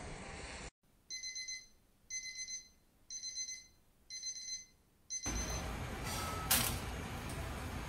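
Electronic alarm-clock beeping: four half-second bursts of rapid high beeps, about one a second. Partway through a fifth burst the beeping gives way to a steady hiss, with one sharp scrape or click a second or so later.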